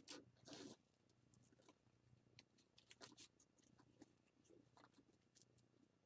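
Near silence with faint rustles and light scattered ticks of hands working a knot in craft cord.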